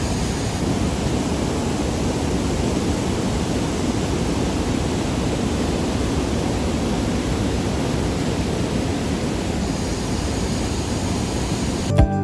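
Haw Creek Falls, a wide, low ledge waterfall, rushing steadily with muddy water running high after rain. The sound is a constant, even roar of falling water.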